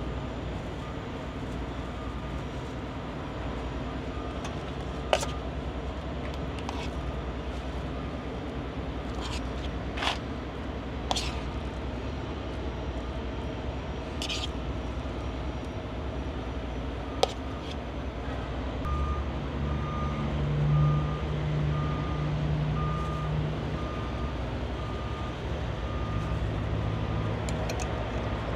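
Low rumble of idling trucks with a few sharp clicks. About two-thirds of the way in, a truck's engine comes up louder and its reversing alarm begins, a steady series of evenly spaced beeps that runs to the end.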